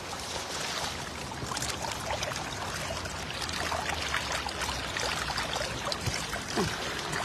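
Water streaming and dripping off a cast net as it is lifted out of a river and shaken over a plastic crate, with many small splashes and patters as fish and water drop from the mesh.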